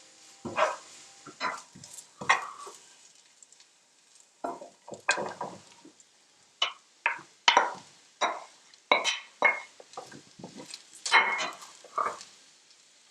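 Kitchen utensils and dishes being handled: about fifteen sharp knocks and clinks at an uneven pace, with short quiet gaps between them.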